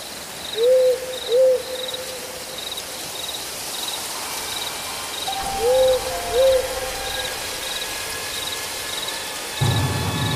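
Night ambience: an owl hooting in two pairs of hoots about five seconds apart, over steady cricket chirping at about two chirps a second. A low rumble sets in near the end.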